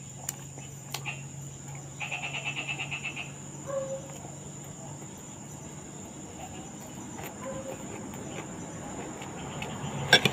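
Close chewing and small clicks of fingers and food against plates, over a steady high insect trill. A pulsed insect chirp comes about two seconds in, and a sharp clatter sounds near the end.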